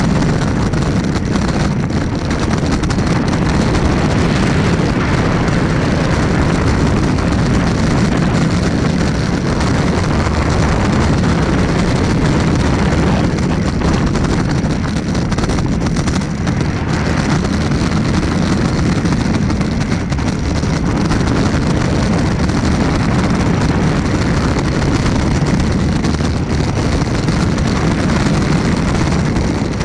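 Wooden roller coaster train running at speed on its wooden track: a loud, steady rumble of the wheels on the rails, with wind buffeting the microphone.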